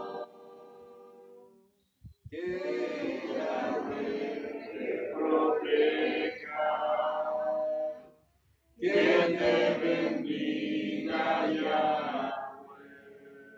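A small group of men and women singing together, in two long phrases separated by short breaks, the second fading away near the end.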